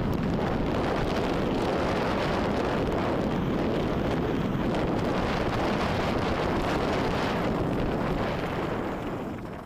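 Wind rushing over a helmet camera's microphone, mixed with mountain-bike tyres rolling over loose gravel on a fast descent. The noise dies down near the end as the bike slows.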